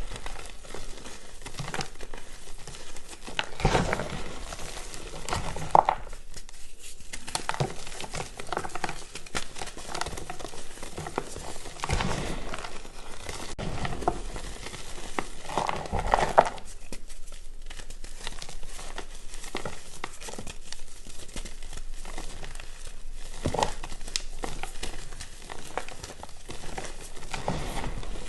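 Reformed gym chalk discs crunching and crumbling as they are crushed: a steady crackle of fine grains, with a louder crunch every few seconds.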